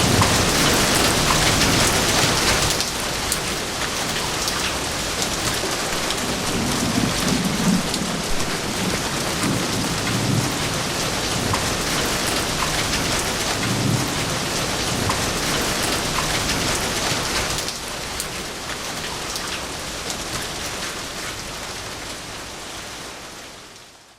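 Heavy rain falling steadily, with low rumbles of thunder now and then. The rain eases a little near the end and then fades out.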